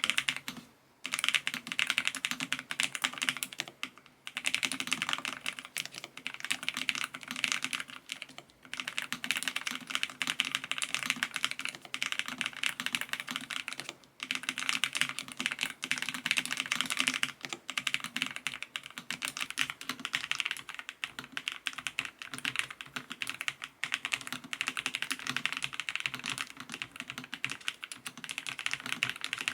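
Fast, continuous typing on a Lofree Flow LITE low-profile mechanical keyboard: a dense stream of key clicks with a few brief pauses.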